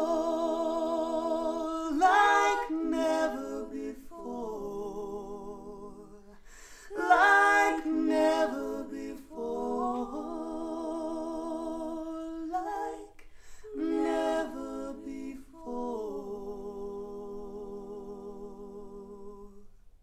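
Recorded song played over Harbeth SHL5+ hi-fi loudspeakers and picked up in the room: a female voice sings long held notes without words in several phrases. The last note is held and fades out near the end.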